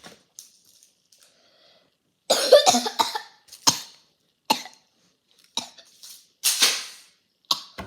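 A person coughing: a loud fit of coughs about two seconds in, followed by several shorter single coughs.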